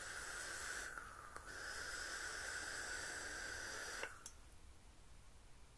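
E-cigarette box mod's tank atomizer hissing as a long draw is pulled through it while the coil is firing, with a short break about a second in. The hiss stops about four seconds in with two sharp clicks.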